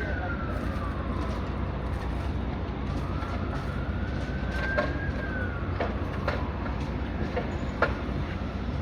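Emergency-vehicle siren in the distance, wailing slowly up and down in pitch, over a steady low rumble. A few sharp knocks come in the second half, the loudest near the end.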